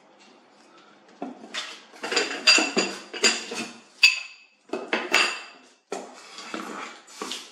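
Metal parts of an Alfawise U30 Pro 3D printer's aluminium frame clinking and knocking as they are handled and lifted. A string of sharp, ringing clinks starts about a second in.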